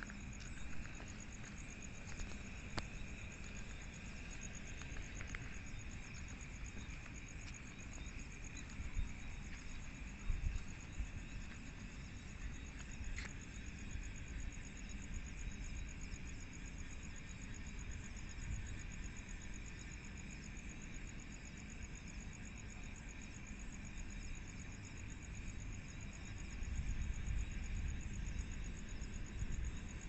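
Night insects such as crickets trilling steadily in chorus: a high, fast-pulsing trill over a lower continuous buzz. A low rumble swells briefly about ten seconds in and again near the end.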